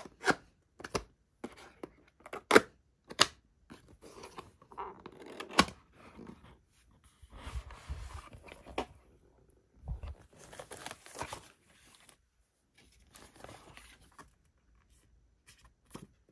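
Cardboard box opened by hand. First comes a run of sharp clicks and taps as the flaps and tabs are worked loose. Then comes a longer stretch of cardboard and paper rustling and scraping as the lid is lifted and the contents are handled.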